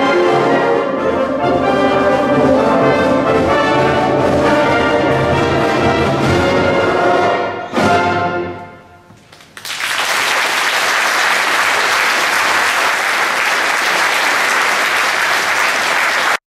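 A brass-heavy wind band plays the closing bars of a piece, ending on a final chord about eight seconds in that rings away. An audience then applauds until the sound cuts off abruptly.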